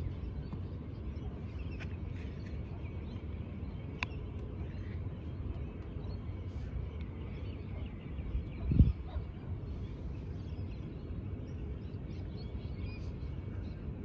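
Outdoor ambience of steady wind rumbling on the microphone with faint bird calls scattered throughout. A single sharp click sounds about four seconds in, and a short, louder low thump, a gust buffeting the microphone, comes about nine seconds in.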